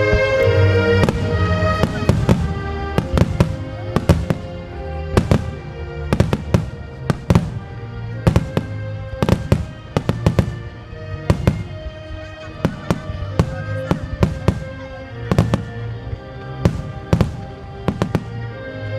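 Starmine fireworks display: a rapid run of shell bursts cracking, about two or three a second, over music with long held notes.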